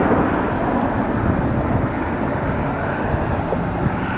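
Steady low rumble of a jet aircraft's engines as it passes, most likely a Gulfstream business jet landing.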